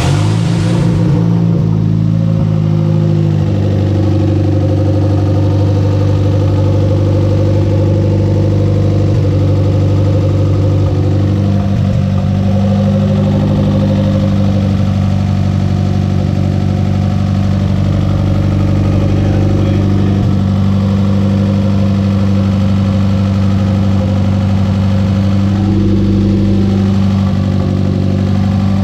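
Chrysler Conquest's 2.6-litre Mitsubishi G54B turbocharged four-cylinder idling steadily just after being started, while it warms up.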